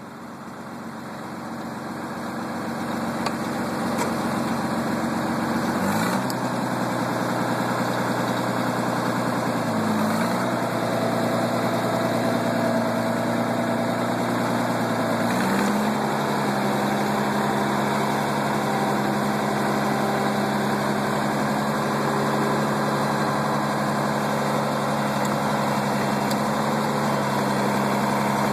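Oliver tractor's engine running steadily as the tractor is driven, growing louder over the first few seconds. Its speed drops about six seconds in, dips briefly around ten seconds, and steps up at about fifteen seconds, then holds steady.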